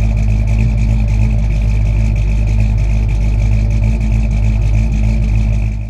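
Engine running steadily at an even idle, loud and low-pitched, fading out at the very end.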